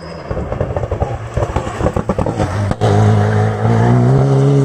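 Rally car engine on a stage: a choppy, crackling run as the car slows for the corner, a brief break near three seconds in, then the engine note rising steadily as it accelerates hard away.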